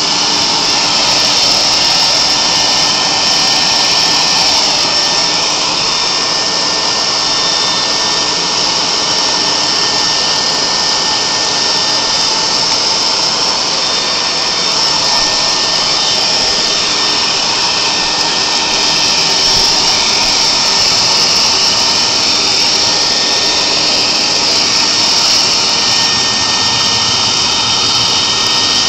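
Shop vac running steadily with a high motor whine, vacuuming soot out of a pellet stove.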